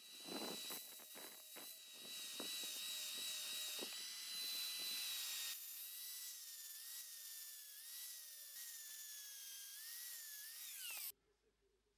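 Angle grinder running, its abrasive disc scraping rust off a steel vise part, with a steady high motor whine and grating contact in the first five seconds. After that the grinder runs under a lighter load with its pitch wavering, and it cuts off suddenly about eleven seconds in.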